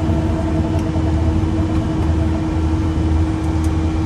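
Steady flight-deck noise of a Boeing 737-500 climbing after takeoff: a continuous rush of airflow and CFM56 engine noise with a low rumble and a steady hum, and a couple of faint clicks.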